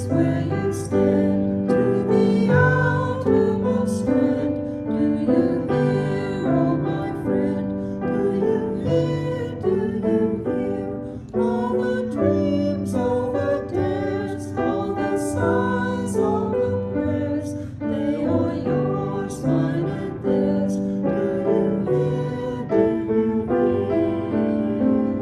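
A hymn sung by a small group of voices, two women and a man, with piano accompaniment.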